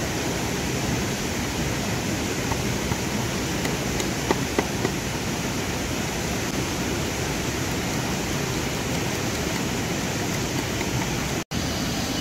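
Steady rushing of flowing water, with a few light knocks about four to five seconds in.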